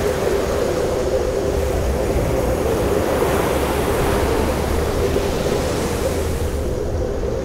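Steady rushing wind and ocean surf, with a constant hum running underneath.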